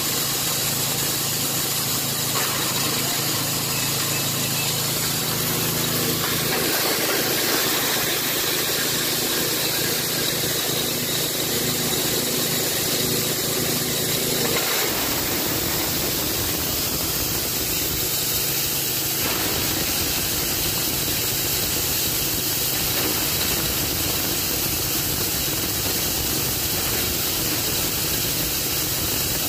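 Multi-purpose fodder chopper driven by a 6.5 HP Matrik petrol engine, running steadily at speed while chopping animal feed, with a constant rushing hiss from the cutter. The low engine tone shifts about six seconds in and again about fifteen seconds in.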